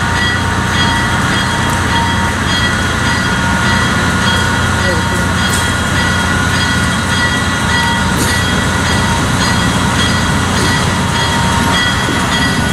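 Diesel locomotive hauling a passenger train, approaching and drawing alongside, its engine running with a steady loud low drone. Thin steady high-pitched ringing tones sound over it.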